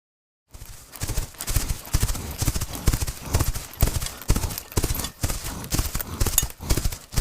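Horse's hooves clip-clopping in a quick, steady rhythm, several hoofbeats a second, starting about half a second in.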